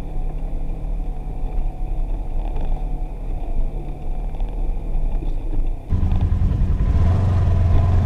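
Side-by-side UTV engine running on the move, a steady low rumble. About six seconds in it switches abruptly to a louder, deeper run.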